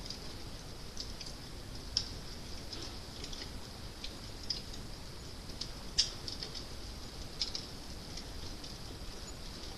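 Fire crackling: irregular small snaps and pops over a soft steady hiss, with sharper pops about two and six seconds in.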